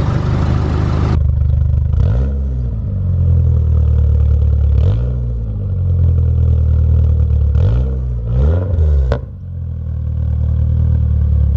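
Nissan 240SX (S13) engine idling through a 3-inch straight cat-back exhaust and blipped four times, each rev rising and falling quickly, with the last two close together. A sharp crack comes about nine seconds in as the revs drop, and the first second is a hissy noise.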